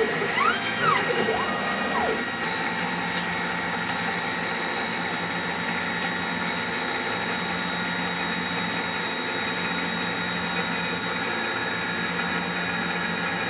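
ACE KISS 104 selective soldering machine running with a steady mechanical hum and several steady tones. In the first two seconds a few whines rise and fall in pitch, and a new steady tone joins about two and a half seconds in.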